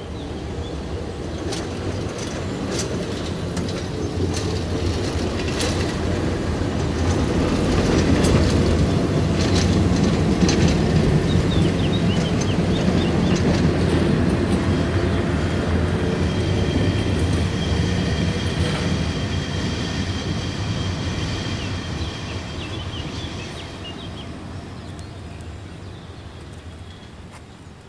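TFS tram passing by on its tracks. Its running noise builds to a peak about ten seconds in and then fades as it draws away. A string of sharp clicks comes in the first half, and a high steady whine follows in the second half.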